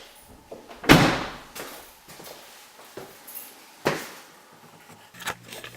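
Knocks and clunks: two loud ones about three seconds apart, with lighter clicks between, and a low steady hum setting in near the end.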